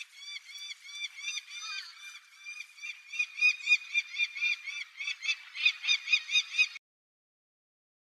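Female peregrine falcon giving a rapid run of repeated calls, about four a second, each note rising and falling; this is her call begging the male for food. The calls grow louder about halfway through and stop abruptly near the end.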